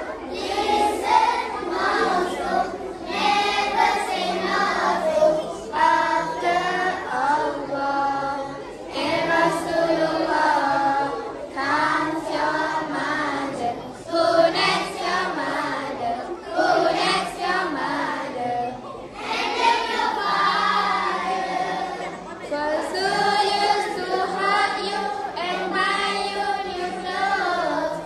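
Children's choir of boys and girls singing together.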